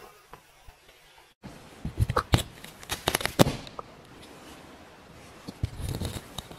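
A cat's claws scratching and snagging in the fabric of a sofa: a run of sharp, crackling scratches. The sound cuts out briefly about a second and a half in, and there is a quieter stretch after the middle before the scratching picks up again.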